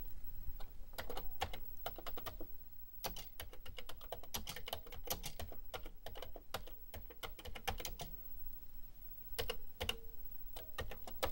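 Typing on a Commodore 64 keyboard: irregular runs of mechanical key clicks with short pauses between them.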